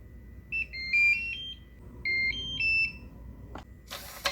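Digital keypad door lock: a single keypad beep, then a short stepped electronic melody about a second in and another about two seconds in, followed near the end by a click and a brief burst of mechanical noise from the lock's motor-driven bolt.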